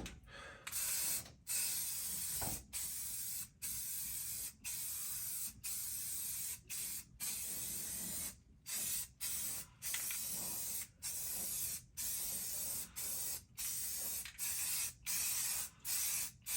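Aerosol can of self-etching primer spraying in a string of short passes, each about a second of hiss, broken by brief gaps.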